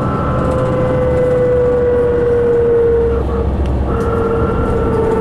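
A 2005 New Flyer D60LF articulated diesel bus heard from on board: a steady low drone with a high whine that slowly falls in pitch. The whine breaks off briefly about three seconds in, then carries on falling.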